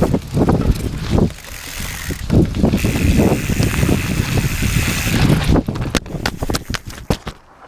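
Mountain bike being ridden on a trail: wind buffeting the microphone over the rumble and rattle of tyres and frame. A run of sharp knocks comes near the end, then the sound drops off suddenly.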